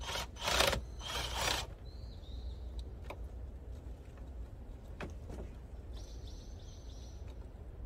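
Cordless drill running in two short bursts on a battery bolt that spins freely instead of tightening. A few light clicks of the tool on the bolt follow.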